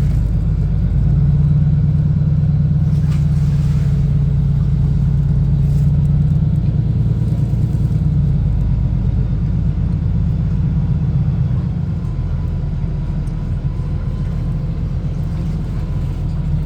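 A motor engine running with a steady low rumble and hum, the hum strongest in the first half and easing slightly later on.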